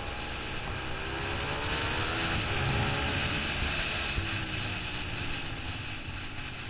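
2008 Suzuki SV650's 645 cc V-twin engine under hard racing use, heard onboard over steady wind rush. The engine note climbs, drops a little before the middle, then climbs again.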